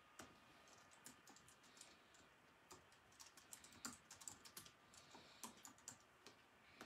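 Faint typing on a computer keyboard: quick, irregular key clicks in short runs, most dense in the middle.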